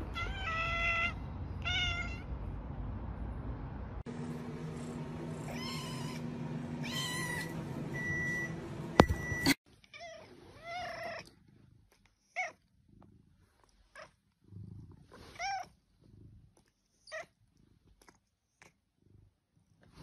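Domestic cats meowing: a string of short, separate meows, with a sharp click about halfway through.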